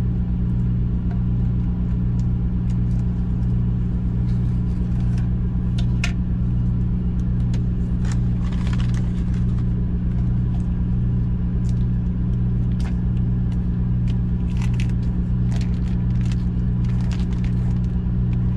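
Semi truck's diesel engine idling inside the cab, a steady low hum. Over it, scattered crinkles and clicks of a vacuum-sealed plastic package being cut with scissors and peeled open.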